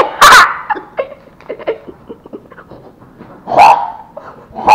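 Short, high, pitched yelps, like a small dog's barks: one just after the start and another near four seconds in, with light clicks and taps in between.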